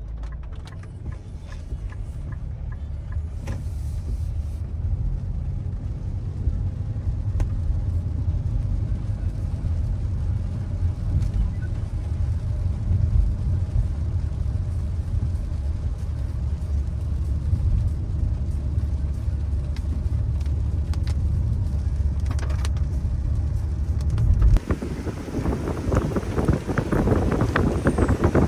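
Steady low rumble of a car's engine and tyres heard inside the cabin while driving on a wet road. About 24 seconds in it cuts off abruptly and gives way to wind buffeting the microphone outdoors.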